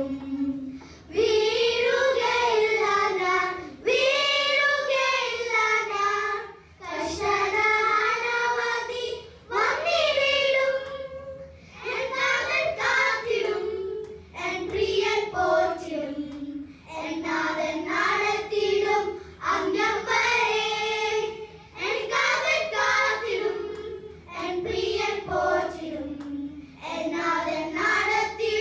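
A group of children singing together into handheld microphones, unaccompanied, in phrases of a few seconds with short breaks for breath between them.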